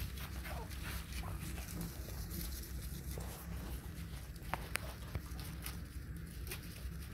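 A litter of puppies suckling at their nursing mother: a continual patter of small wet smacking clicks, with a couple of sharper clicks about four and a half seconds in.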